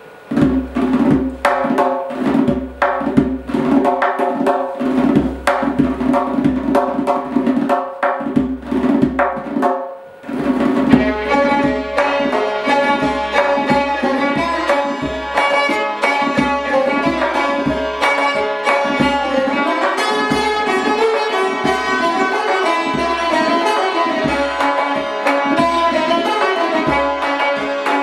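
Persian classical ensemble playing: tonbak goblet drum, santoor hammered dulcimer, tar and violin. For the first ten seconds the playing is built on repeated struck notes, then there is a short break and the ensemble comes back fuller and denser.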